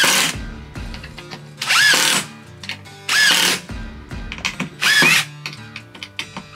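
Cordless drill driving wood screws through a metal corner brace into a pine 1x3 frame. It runs in four short bursts about a second and a half apart, its motor whine rising and falling with each squeeze of the trigger.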